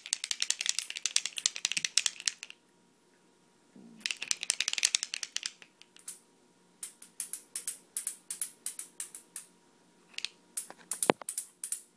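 Baby shaking a handheld plastic bead rattle: fast clattering of the beads, a pause of about a second, more clattering, then rhythmic shakes a couple of times a second, with one sharper knock near the end.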